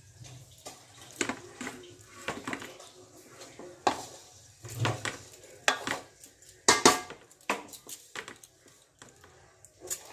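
A spatula knocking and scraping against a pan and a large aluminium cooking pot as egg masala is spooned onto layered rice. The knocks come irregularly, the loudest about two-thirds of the way through.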